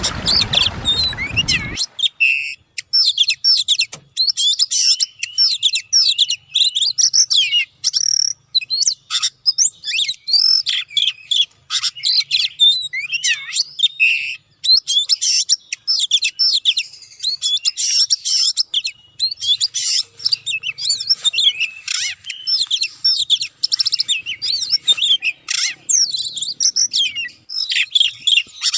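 Oriental magpie-robin singing a fast, varied song of chirps, trills and whistles, almost without a break. A rushing hiss covers the first two seconds.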